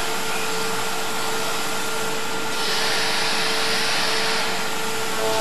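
CNC vertical machining center running with its end mill not yet in the cut: a steady machine whir with a steady hum tone, and a higher hiss that comes in for about two seconds midway.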